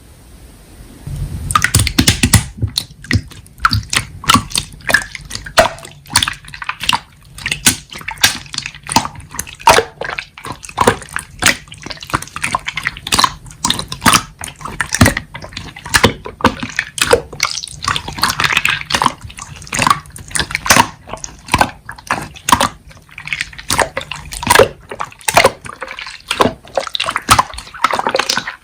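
Slime being squished and kneaded by hand: a fast, irregular run of wet clicks and pops, starting about a second in.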